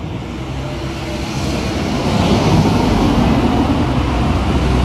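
Road traffic: car engines and tyre noise of vehicles driving close by, getting louder over the first couple of seconds and then holding steady.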